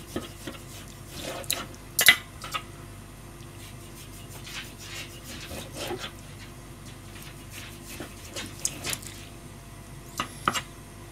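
Kitchen knife slicing raw chicken breast thinly on a plastic cutting board: soft cutting strokes with irregular taps of the blade on the board, the sharpest about two seconds in and two more near the end.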